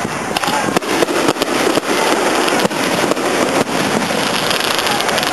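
Aerial firework shells bursting overhead: an irregular rapid series of sharp bangs over a continuous dense crackle from the burning stars.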